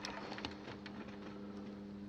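Light clicks and ticks of small parts and tools being handled, as a new capacitor's wire leads are fed into a circuit board, over a steady low electrical hum.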